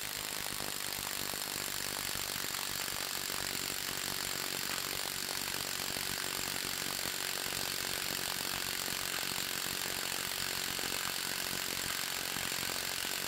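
Milwaukee M18 FUEL 2962-20 half-inch mid-torque impact wrench hammering steadily and rapidly through a half-inch to 3/8-inch drive adapter, tightening against a torque test fixture while the torque builds. The adapter holds through the run.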